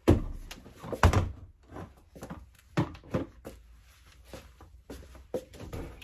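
A plastic mop bucket being lifted down off a washing machine and other items handled, making a series of knocks and clunks. The two loudest come right at the start and about a second in, with lighter taps after.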